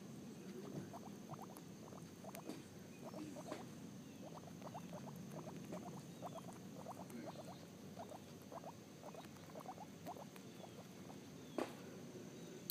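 Guinea pig chewing and tearing grass up close: a quick, irregular run of small crunching ticks, about three or four a second, with one sharper click near the end.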